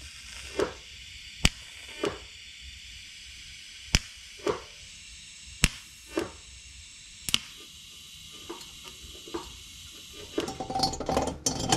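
Welder tacking together a stainless steel downpipe: a series of sharp cracks, roughly every two seconds, each followed about half a second later by a short burst, with small knocks and clatter near the end.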